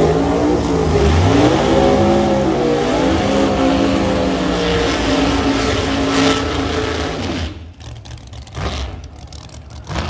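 Drag race car engines revving hard during a burnout, the pitch climbing in repeated sweeps. About seven and a half seconds in, the sound cuts off abruptly to a much quieter, distant engine noise.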